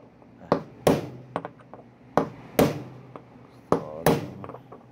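Three pairs of sharp hammer strikes, with a lighter tap between the first two pairs, on a tool set against a new ball bearing's outer edge. They drive the bearing into the washing machine tub's bearing housing until it seats level.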